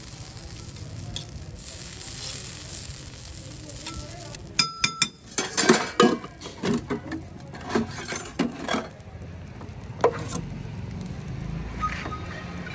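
Steel spatula scraping and spreading potato filling across a hot iron dosa griddle, with a faint steady sizzle. About five seconds in, a metal utensil clinks with a brief ringing note, followed by a run of sharp metallic clanks and taps, with more near the end.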